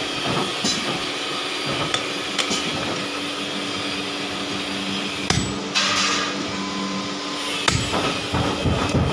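A few scattered hammer blows on red-hot steel on a blacksmith's anvil, the sharpest about halfway through and near the end, over a steady low hum.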